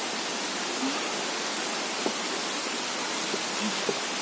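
Steady rushing noise of falling water, rain and the waterfall, with a few faint taps.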